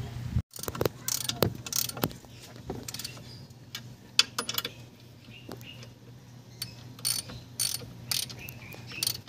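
Ratchet wrench clicking in short, irregular bursts as the clutch pressure plate bolts are run onto the flywheel.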